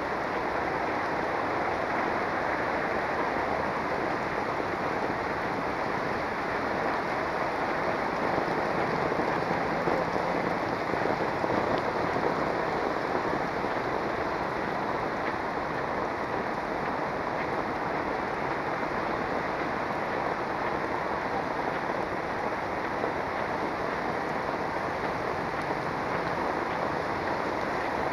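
Heavy rain falling steadily on a paved street and roofs, a dense, even hiss with no break.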